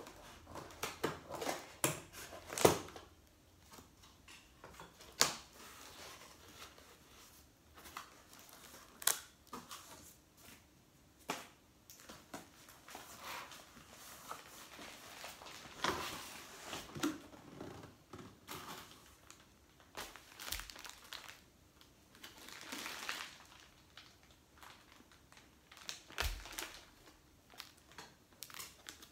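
Scissors snipping through packing tape on a cardboard box, then cardboard flaps scraping and rustling as the box is opened and unpacked, in irregular clicks and scrapes, loudest a little under three seconds in. Near the end a plastic-wrapped pillow is handled, its wrap crinkling.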